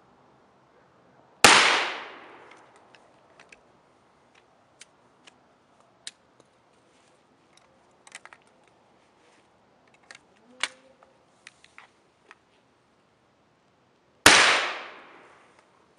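Two blasts from a 12-gauge short double-barrel shotgun about thirteen seconds apart, each dying away over about a second. Faint scattered clicks and taps come between them.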